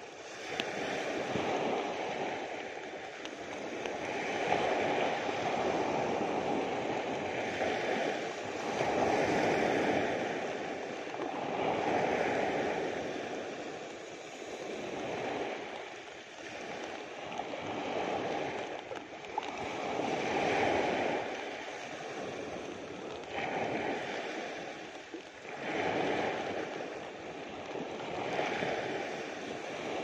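Small sea waves breaking and washing up a beach, the surf swelling and falling away every three to five seconds.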